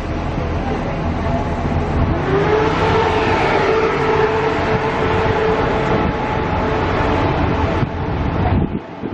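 Queensland Rail electric suburban train pulling out of the station past the platform. A steady rumble of wheels on the track runs under a traction-motor whine that rises in pitch about two seconds in and then holds steady. The sound drops off abruptly near the end.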